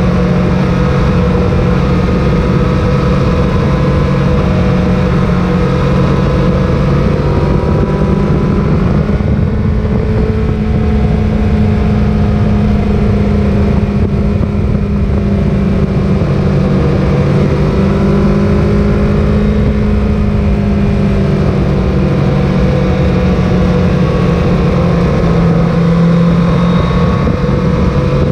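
Sport motorcycle engine running steadily at road speed, its note drifting up and down a little with the throttle, under heavy wind rush and buffeting on the microphone.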